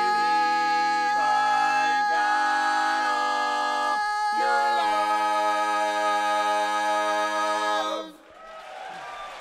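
Barbershop quartet singing a cappella in close four-part harmony through the closing tag of the song: a few shifting sustained chords, a brief break about four seconds in, then one long held final chord that cuts off at about eight seconds. Audience applause starts right after the cutoff.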